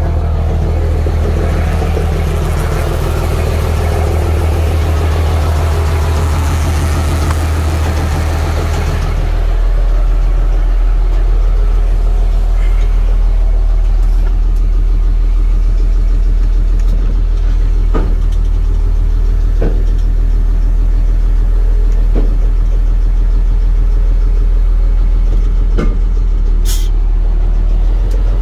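A 2007 Peterbilt 335 dump truck's diesel engine running at a steady idle. About ten seconds in, the sound turns to a duller, deeper hum as heard from inside the cab, with a few light knocks later on.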